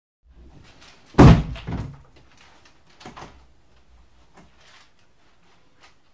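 Bedroom door banging shut: two heavy thumps about half a second apart, a second in, then a lighter knock about three seconds in, followed by faint rustling.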